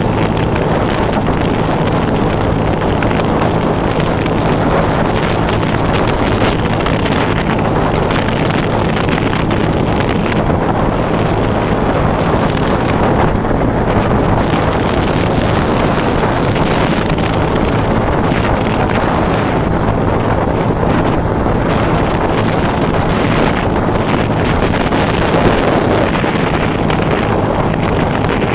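49cc Huasheng CVT scooter's single-cylinder engine running steadily while riding, with wind buffeting the handlebar-mounted microphone.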